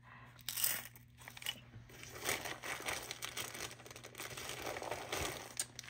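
Plastic bag crinkling and rustling as it is handled, in a run of irregular crackles with a sharper burst under a second in.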